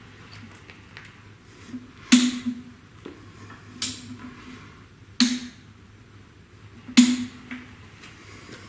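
Four sharp metallic clacks about one and a half seconds apart, each ringing briefly, over a faint steady hum, as the crankshaft is turned in steps by hand to sweep a dial indicator around the bellhousing bore for a runout check.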